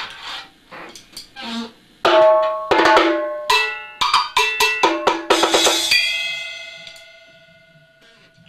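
Drum kit played in a quick fill: a few light hits, then a fast run of loud drum strikes, each ringing at its own pitch, ending on a hit that rings out and fades over about two seconds.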